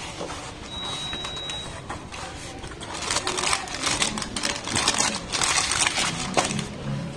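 Crinkling of white packing paper and rustling of cardboard flaps and small plastic zip-lock bags as a box of parts is opened by hand, an irregular crackle that is busiest from about three seconds in.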